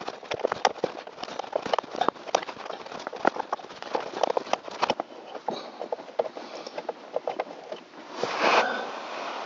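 Quick, irregular metallic clicks and taps of an open-end wrench worked in short strokes on a blower motor resistor's mounting screw, thinning out about halfway through. Near the end, a brief louder rushing noise.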